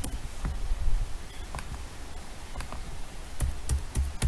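Computer keyboard keystrokes as a username and password are typed: scattered single clicks, coming quicker in the last second.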